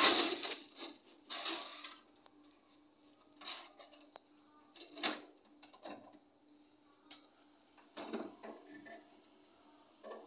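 Bricks and a loaded wheelbarrow clattering and scraping as they are handled, in separate bursts a second or two apart, the loudest right at the start. A faint steady hum runs underneath.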